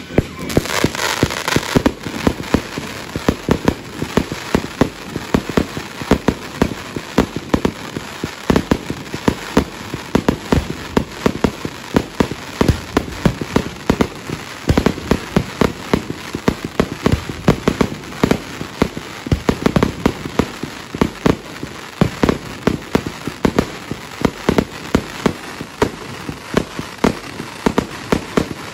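Fireworks going off: a hissing start, then a long, rapid, unbroken stream of sharp bangs and cracks.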